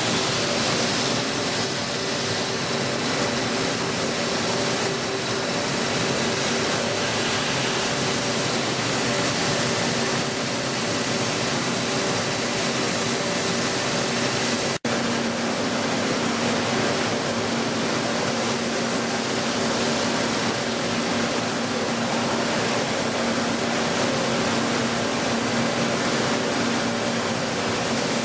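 A CNC machine tool running: a steady hiss, like coolant spray, over a low steady hum, broken by a momentary cut-out about halfway through.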